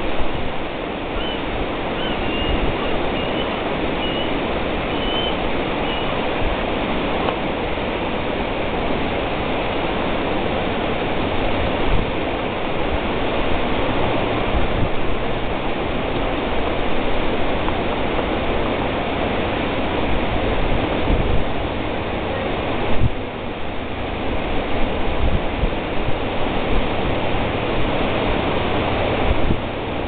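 Steady wash of ocean surf breaking in continuous lines.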